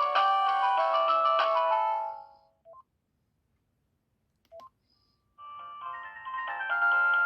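Panasonic GD67 mobile phone playing its built-in ringtones: a chiming synthesized melody of several notes at once fades out about two seconds in, two short beeps follow, and the next ringtone starts about five seconds in, growing louder over a second or so.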